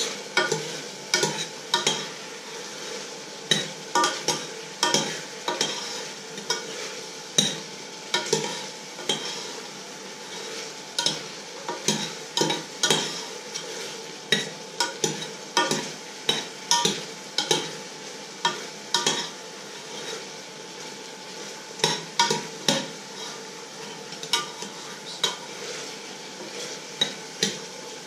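Metal spoon stirring in a stainless-steel saucepan, clinking and scraping against the sides in irregular strokes, mostly one or two a second, with a couple of short pauses.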